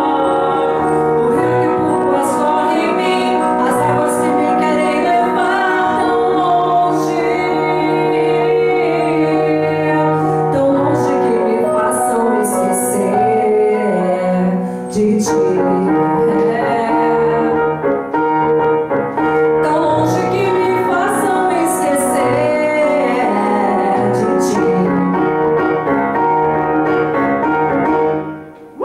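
A woman singing a pop ballad into a handheld microphone over piano accompaniment; the music ends shortly before the close.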